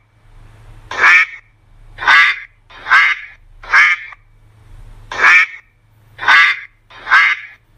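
A duck quacking: seven short, loud quacks about a second apart, with a slightly longer pause in the middle.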